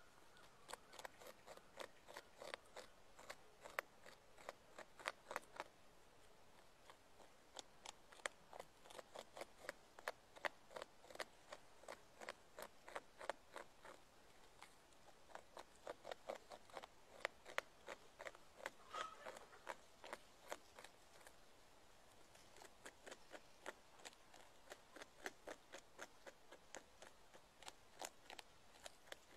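Beaver gnawing into a tree trunk: a long run of sharp crunching bites into the wood, several a second, broken by short pauses.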